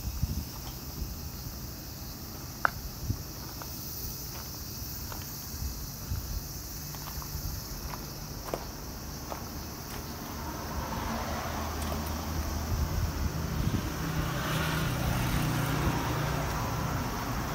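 Low rumble of a motor vehicle's engine, growing louder in the second half, with scattered footstep crunches and a steady high insect drone.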